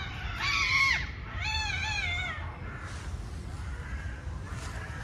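Cats yowling at each other in a fight standoff: two loud, drawn-out, wavering yowls in the first half, then fainter yowls.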